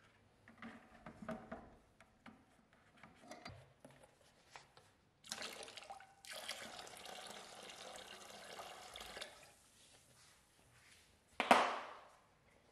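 A rusty axe head lowered into a plastic bucket of soaking liquid with small splashes and knocks, then more liquid poured in for about four seconds, topping up the rust-removal soak. A single loud knock comes about a second before the end.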